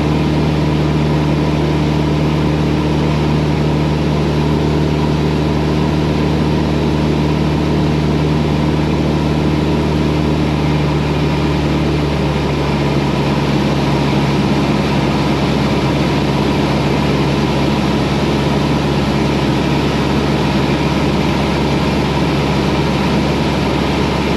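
Cessna 172's four-cylinder piston engine and propeller droning steadily in cruise, heard through the pilot's headset intercom. The engine note shifts slightly lower a little under halfway through.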